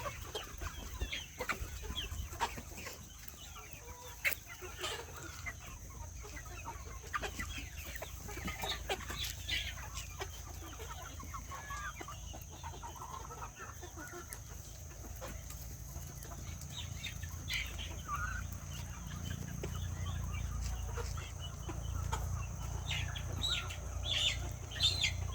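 Village chickens clucking on and off, with scattered short calls from the flock over a steady low background rumble.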